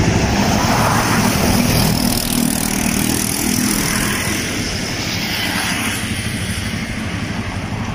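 City street traffic noise, with a van's engine and tyres passing close by a few seconds in. The noise eases slightly after it has gone.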